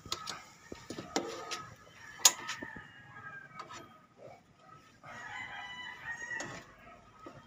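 A rooster crowing once, a long call about five seconds in, with sharp clinks of a metal ladle against an aluminium pot and a steel colander, the loudest just after two seconds.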